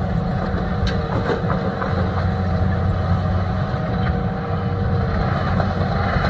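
Heavy diesel engines running steadily: a Volvo EC480D excavator working as it loads a MAN dump truck, with the truck's engine idling alongside. A faint steady whine runs through it, and there are a few light knocks.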